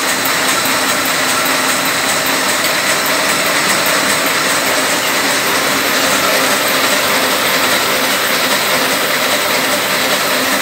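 Ryobi offset printing press running: a steady, loud mechanical whir of its rollers and drive, with a light fast ticking over it.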